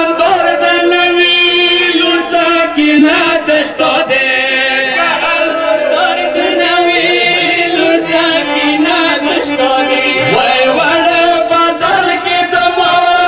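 A reciter chanting a Pashto noha, a Shia mourning lament, in long, slowly bending held lines.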